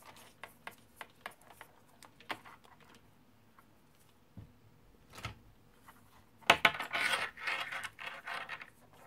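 Small clicks and taps from hands handling a plastic cable organizer and cables, with a denser burst of clattering and rustling about six and a half seconds in.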